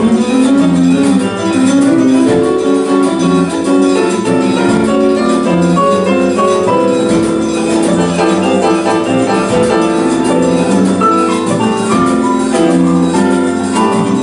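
Live band music with the piano prominent, playing a busy line of short notes over guitars and other instruments.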